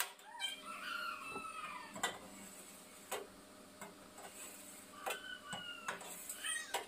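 A knife clicking against a stainless steel tray as it slices through set pandan gelatin: a sharp click every second or two, with a few short falling calls in the background.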